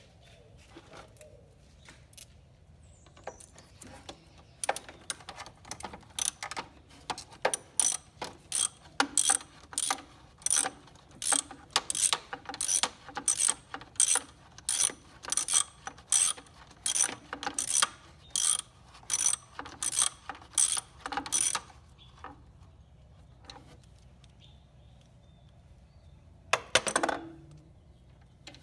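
A hand ratchet clicking in an even rhythm of about two to three clicks a second, as a fastener on the mower is worked loose; it stops about three-quarters of the way through. A single louder rasping burst follows near the end.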